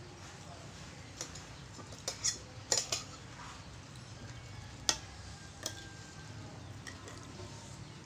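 Metal spoon and fork clinking and scraping against glass and ceramic plates while food is picked up, in scattered sharp clinks: a cluster about two to three seconds in, then a few single ones later.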